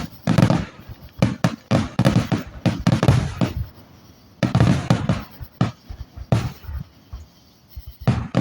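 Aerial fireworks going off in a rapid string of booms and crackles, thickest in the first half and thinning to a few scattered bangs later on.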